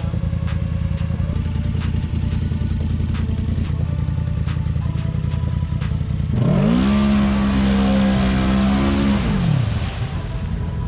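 ATV engine running steadily at low revs, then revved hard about six seconds in: the pitch climbs quickly, holds high for about three seconds, then falls back.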